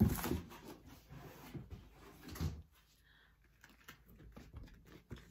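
A box being set down with a knock, followed by rustling and handling noise and a second knock about two and a half seconds in, then faint scattered clicks.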